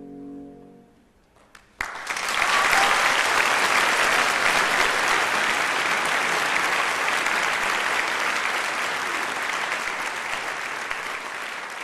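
The held closing chord of the music dies away. About two seconds in, an audience breaks into applause, which stays steady and eases off slowly toward the end.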